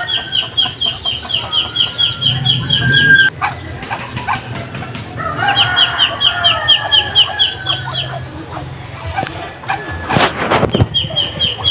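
Farmyard chickens clucking, over runs of rapid, evenly repeated high chirps from a bird, about five a second, that stop and start again. A brief loud sound near the end.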